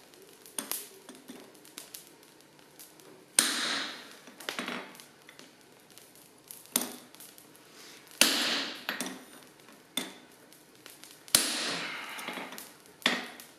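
Hand hammer striking a set hammer held on a red-hot steel chain-link bar on an anvil: several sharp, ringing metal-on-metal blows a second or more apart, three of them louder than the rest. These are the set-down blows that shape the scarf for a forge weld.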